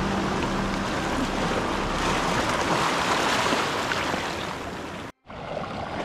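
Steady rushing wash of beach surf and moving water, with a sudden brief break near the end.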